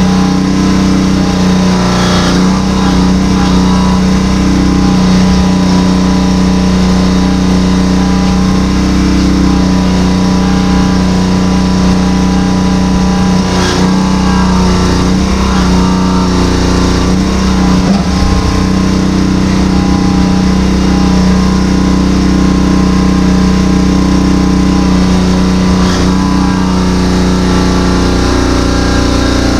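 Small engine running the hydraulic pump of a jaws-of-life spreader, holding a steady speed. Its note wavers briefly a few times as the tool takes load.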